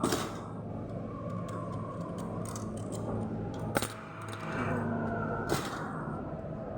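Three sharp clicks or knocks from objects being handled, one at the start, one near the middle and one a couple of seconds later, over a steady low hum.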